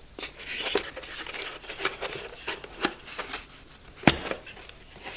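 Cardboard box and packaging being handled and put back together: irregular rustling, scraping and crinkling, with light clicks and one sharp knock about four seconds in.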